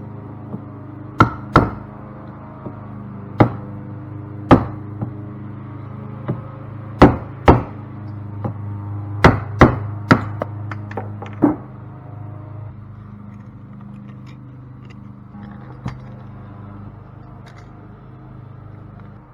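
Hammer blows on metal while a stuck part is being knocked loose from a cast aluminum pump: about a dozen sharp strikes in irregular groups over the first eleven seconds, then a few lighter taps, over a steady low hum.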